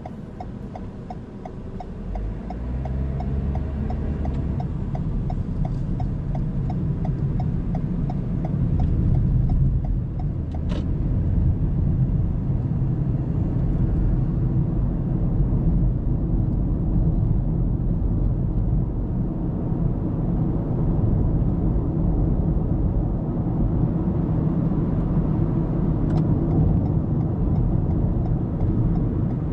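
Car road and engine noise heard inside the cabin, a steady low rumble that swells as the car picks up speed about two seconds in. A regular ticking sounds over it for the first several seconds, then stops.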